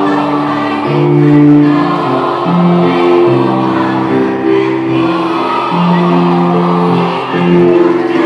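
Mixed school choir singing in harmony, holding long chords that change about once a second.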